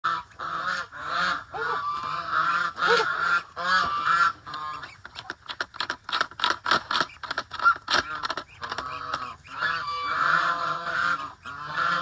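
Domestic geese honking in a run of repeated calls. About halfway through, quick clicks and rattles come in as feed is poured from a plastic bucket into a plastic tray.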